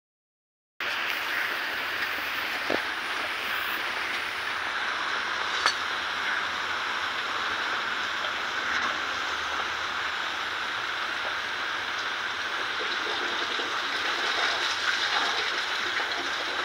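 Gas welding torch flame hissing steadily while a radiator seam is welded, with a couple of sharp metallic clicks.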